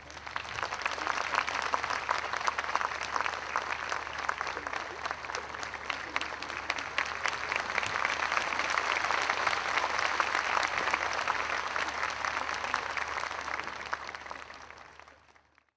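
Audience applauding: many hands clapping together in a dense, steady clatter that starts suddenly and fades out near the end.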